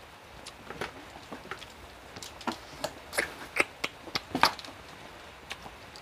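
Eating sounds: fingers picking through seafood papaya salad with cockle shells on a metal tray, heard as irregular short clicks and smacks, growing busier and louder in the middle.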